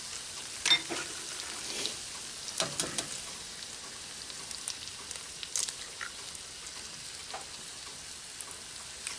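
Potatoes, sausage and bacon sizzling steadily in a hot cast iron skillet, with a few sharp cracks as eggs are broken over the pan, the loudest a little under a second in.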